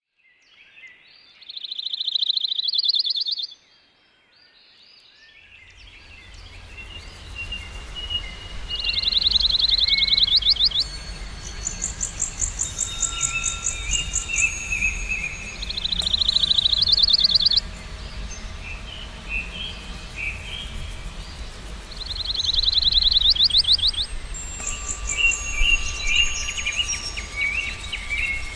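Several wild birds singing. One repeats a short song of about two seconds that ends in a fast trill, roughly every seven seconds, while others add thin, very high calls and softer chirps. A low, steady rumble sits underneath from about five seconds in.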